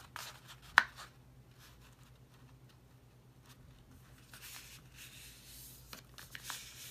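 Square sheet of paper being folded and creased by hand: faint rustling and small ticks, with one sharp tap about a second in.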